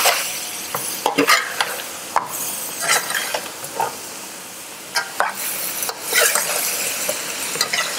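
Strips of bell pepper sizzling in their reduced sauce in an aluminium frying pan while a metal slotted spatula stirs them, with irregular scrapes and clicks of the spatula against the pan.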